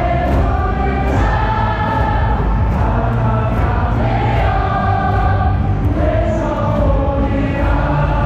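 Baseball stadium crowd singing a team cheer song in unison, in long drawn-out phrases.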